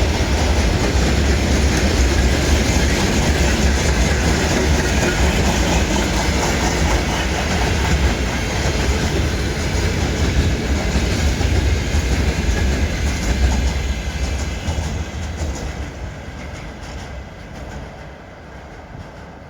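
Train cars rolling past with wheels clattering over the rail joints, a steady loud rumble that fades away over the last few seconds as the train moves off.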